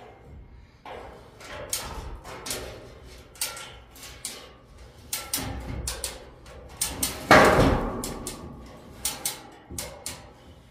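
Irregular metal knocks and clicks from work on a steel pallet-rack frame, with one loud bang about seven seconds in that rings on.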